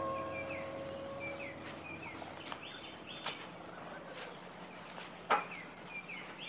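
Birds chirping in short, repeated phrases, with a few sharp clicks, the loudest about five seconds in. A held music chord fades out in the first second or two.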